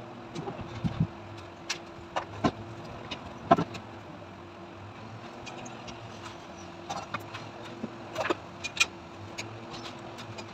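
Scattered sharp clicks and knocks of hard objects being handled, about eight of them, the loudest about three and a half seconds in, over a steady low hum.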